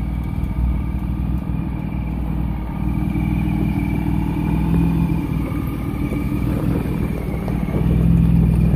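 Jeep Wrangler's engine running steadily at low revs as it crawls over rocks, getting a little louder near the end as it comes close.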